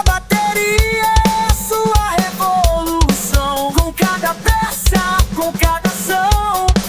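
Instrumental music: a drum kit playing a steady beat with kick and snare, under a melodic lead line that moves from note to note.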